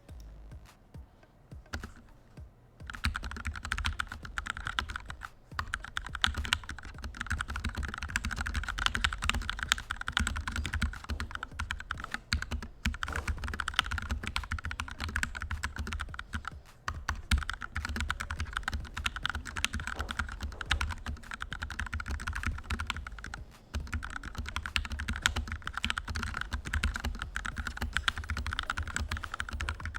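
Typing sound test on a Tecware B68 mechanical keyboard fitted with Gateron Milky Yellow linear switches, lubed with Krytox 205 and filmed. A few scattered keystrokes give way about three seconds in to fast, continuous typing, with a few short pauses.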